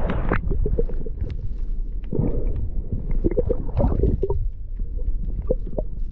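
Water gurgling and sloshing around an underwater camera, with a constant low rumble, many small clicks and a few swells of water noise.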